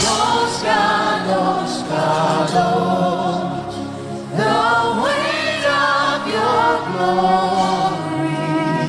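Choir and congregation singing a slow gospel worship song, voices holding long, wavering notes over a soft instrumental backing.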